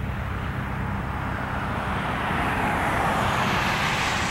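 Airbus A320's jet engines on final approach, a steady rushing roar that swells slowly as the airliner comes closer.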